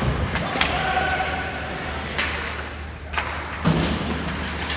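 Sounds of ice hockey play in a large arena: about five sharp knocks of sticks and puck. The heaviest thuds, against the boards, come at the start and near the end.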